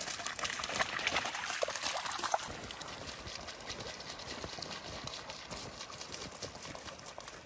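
Footsteps of people walking, a steady run of steps that is louder for the first couple of seconds and then softer.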